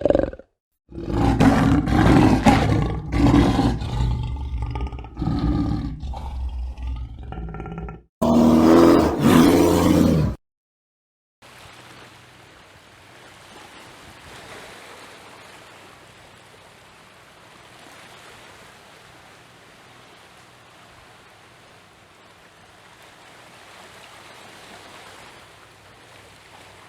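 A large wild animal roaring loudly in a string of rough calls, which stop abruptly; after a short break comes one more loud roar of about two seconds. Then there is only a quiet, steady background hiss for the rest of the time.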